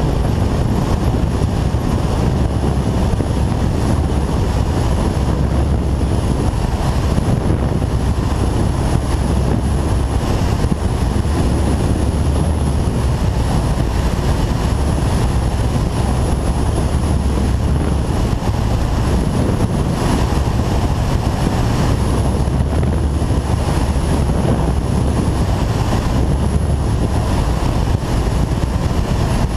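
Steady wind rush and engine drone from a Kawasaki ZZR1400 inline-four ridden at speed, with a faint, thin high whistle coming and going above it.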